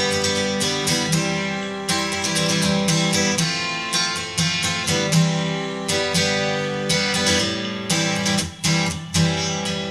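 Background music led by strummed acoustic guitar, strokes following one another in a steady rhythm.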